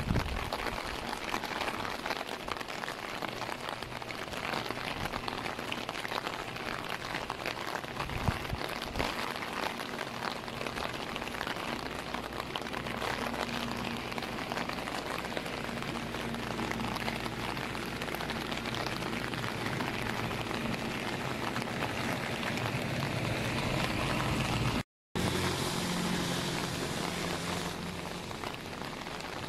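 Steady rain pattering down, a dense even hiss of drops. The sound cuts out for a moment about 25 seconds in.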